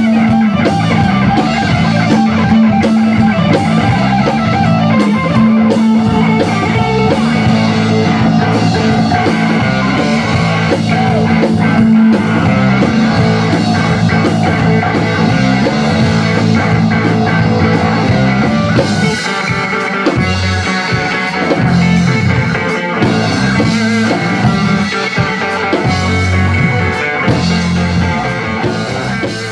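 Rock band playing live: distorted electric guitars over a Tama drum kit, with steady drum strikes and sustained low notes, easing off slightly near the end.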